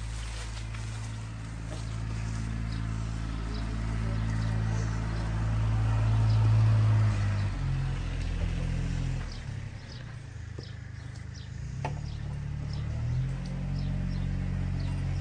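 A vehicle engine idling with a low steady hum that rises in level for a few seconds, eases off around the middle and picks up again near the end, while small birds chirp.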